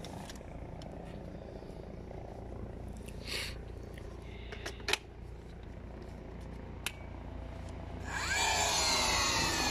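Clicks and knocks of a DeWalt 18V battery pack being handled and latched onto a cordless nailer, the sharpest click about five seconds in. From about eight seconds a louder rushing noise with a sweeping pitch swells up.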